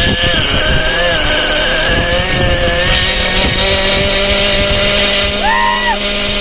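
Small glow-fuel (nitro) engine of an RC helicopter running on the ground, smoking, with its pitch wavering up and down as the throttle moves; a steadier low tone joins it about halfway through.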